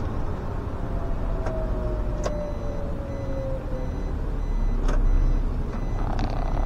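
SOR CN10.5 bus under way, heard from on board: the diesel engine and drivetrain give a steady low rumble with a whine that falls slowly in pitch. A few sharp knocks and a burst of rattling come from the body.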